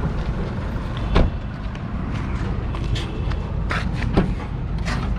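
A car door shut with a single sharp knock about a second in, then a few lighter knocks, over a steady low outdoor traffic rumble.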